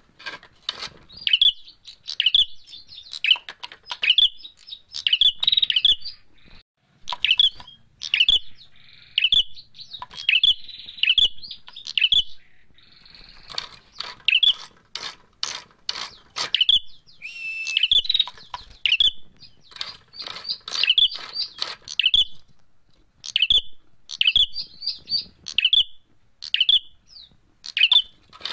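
Caged prenjak merah calling in rapid series of short, sharp, high chirps, coming in bursts with brief pauses, mixed with light clicks and flutters of the agitated bird moving about its bamboo cage.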